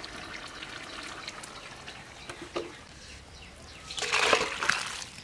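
Metal cookware being handled as a cooked fish curry is taken off the fire and served: small clinks over a low hiss, then a louder scrape and slosh of thick curry tipped into a steel bowl about four seconds in, lasting under a second.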